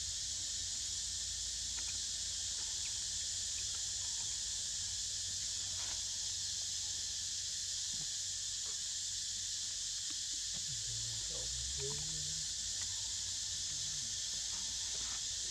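Insect chorus: a steady, high-pitched drone.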